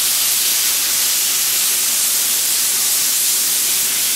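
Freshly flipped beef steaks sizzling on a hot flat-top griddle: a steady hiss.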